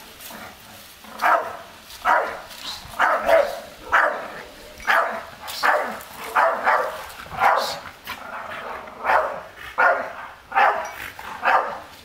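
Staffordshire Bull Terrier barking repeatedly, about one to two barks a second, in short separate barks. This is warning barking at a stranger it does not know approaching its yard.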